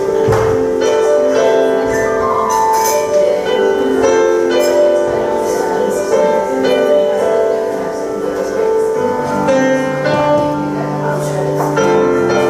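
Grand piano played in a slow improvisation, chords and melody notes left to ring into each other; deeper bass notes come in about nine seconds in.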